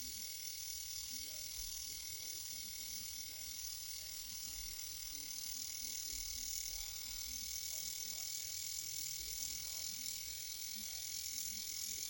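Small battery-powered eyebrow trimmer running with a steady high buzz.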